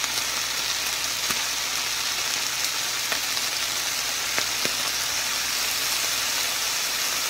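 Chopped chicken thigh, onion and green pepper frying in a hot pan: a steady sizzle with a few sharp pops scattered through it.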